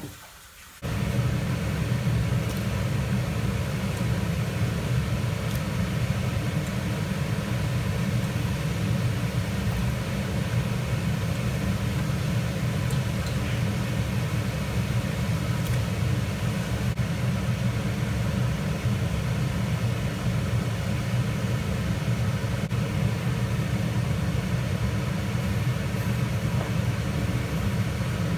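Steady low rumbling noise with a faint hiss over it, starting abruptly about a second in.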